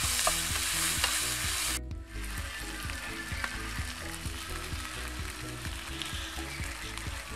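Food sizzling in a nonstick frying pan as a metal spatula stirs and scrapes it. The sizzling cuts off about two seconds in.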